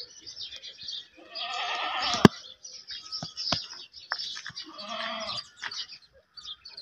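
A goat bleats twice: a long, wavering bleat about a second and a half in and a shorter one about five seconds in, over birds chirping. A sharp click just after the first bleat is the loudest sound.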